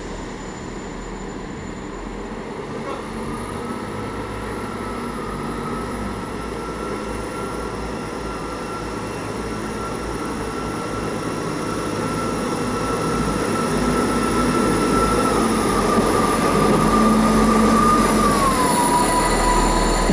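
Class 159 diesel multiple unit's engines running and getting steadily louder, with a steady high whine that slides down in pitch near the end.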